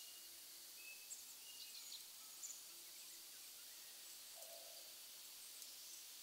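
Near silence: faint outdoor ambience, a steady soft hiss with a few brief, high bird chirps in the first half.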